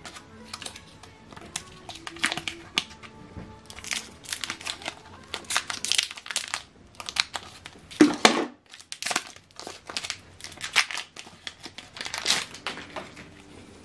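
Clear plastic packaging of an ink cartridge crinkling and tearing as it is cut and pulled open with scissors, in many short irregular bursts.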